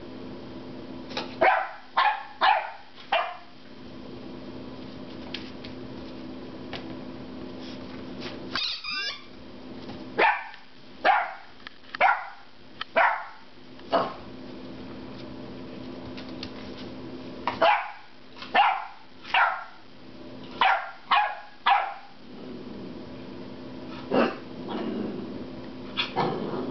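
Ten-week-old puppy barking loudly in frustration at a rubber squeaky pig toy, in short runs of sharp barks with pauses between them, a longer run of about eight near the middle.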